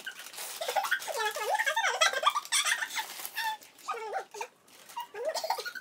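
High-pitched women's voices and laughter, with the crinkle of a plastic snack packet being handled and opened.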